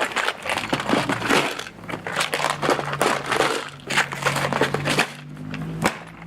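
Loose metal nuts and bolts clattering and rattling as they are handled and sorted, a dense run of small irregular clicks.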